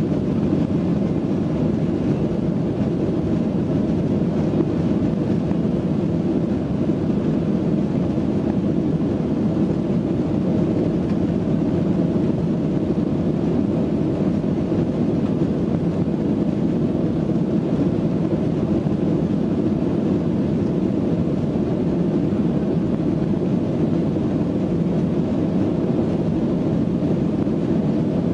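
Boeing 737 jet engines and airframe heard from inside the passenger cabin as the plane rolls along the runway: a loud, even rumble that holds steady without rising or falling.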